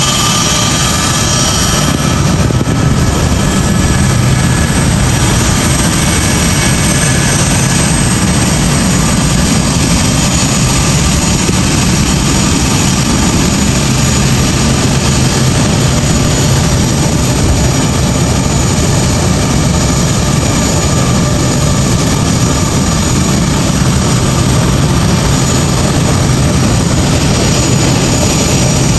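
Jet aircraft engines running, a loud steady rushing noise with a faint high whine in the first couple of seconds.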